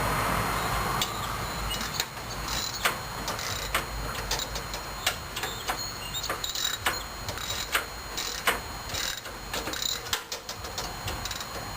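Irregular sharp metallic clicks and clinks of hand tools working on a Craftsman riding mower, with a few short buzzy bursts among them. A rushing noise fades out in the first second.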